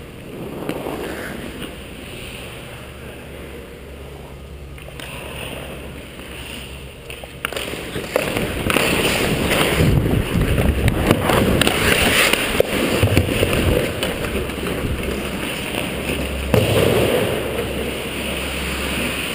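Hockey skate blades scraping and carving the ice, with wind rushing over a helmet-mounted camera. It gets louder and busier about seven or eight seconds in, with scattered sharp clicks.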